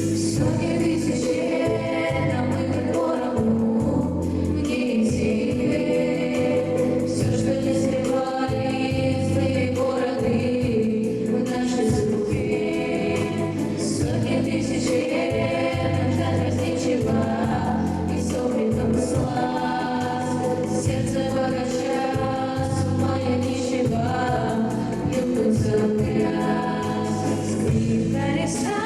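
Music: a choir of voices singing held, moving lines over instrumental accompaniment with a steady low bass.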